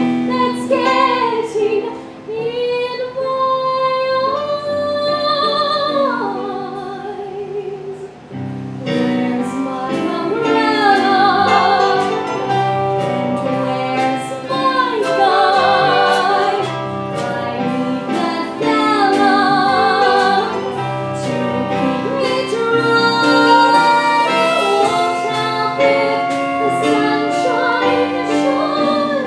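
A woman singing a slow show tune with vibrato on long held notes, accompanied by a live band with drums.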